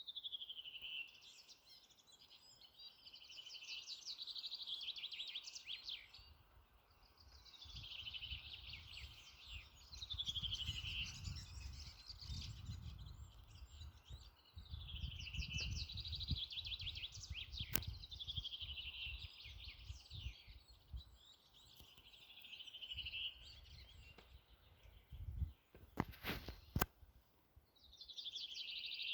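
A songbird singing the same phrase over and over, about eight times: each phrase is a quick trill that falls in pitch and lasts two to three seconds. Under it runs a low rumble, with a few sharp clicks about 18 and 26 seconds in.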